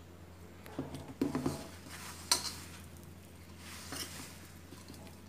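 Hands mixing and kneading crumbly dough in a stainless steel bowl, a soft rustling and squishing with a few knocks against the metal bowl about a second in. A single sharp knock about two seconds in is the loudest sound, with a smaller one near four seconds.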